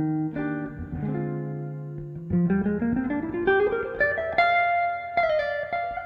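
Hollow-body electric guitar and electric bass playing an instrumental duo. Held chords give way, about two seconds in, to a quick run of notes climbing steadily in pitch, which ends on high ringing notes.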